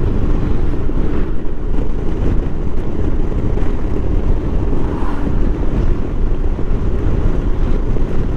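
Steady wind rush buffeting the microphone on a moving motorcycle, with the engine and road noise running underneath at cruising speed.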